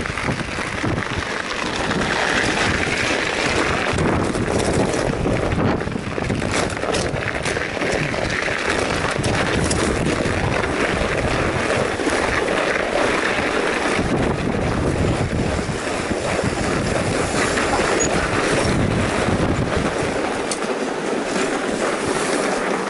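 Steady rushing noise of a fat bike riding over packed snow: wind buffeting the microphone mixed with the wide tyres rolling on snow, with a few light knocks from the bumpy trail.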